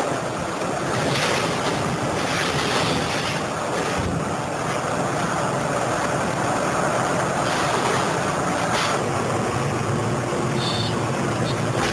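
Liebherr material handler running, its diesel engine and hydraulics making a steady rumbling noise as the orange-peel scrap grapple works, with wind on the microphone.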